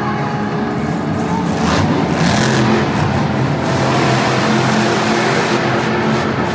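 Monster truck's supercharged V8 engine running and revving as the truck drives across the arena floor, heard from high in the stadium stands; it grows louder about two seconds in and eases off near the end.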